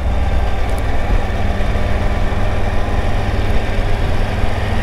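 Triumph Tiger 900's three-cylinder engine running steadily, heard as an even low rumble with a steady hum.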